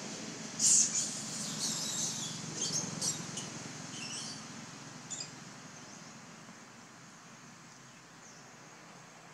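A run of short, very high-pitched chirping squeaks from an animal, loudest a little under a second in and fading out by about five seconds, over a low steady background hum.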